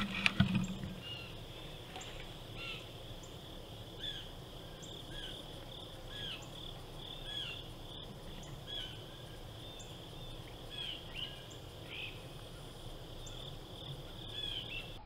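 Steady insect chorus, a continuous high buzz like crickets, with short arched chirps repeating over it every second or so. A couple of low bumps right at the start.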